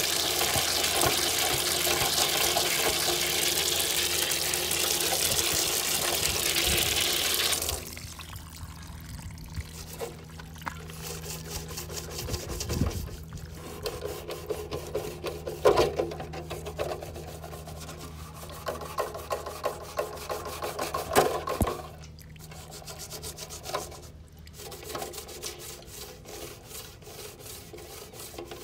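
Cleaning a small charcoal grill: a steady rush of splashing water and scrubbing for about the first eight seconds, which cuts off abruptly. Then comes quieter rubbing and scraping of a rag on the grill's metal tray and rim, with scattered knocks and clicks.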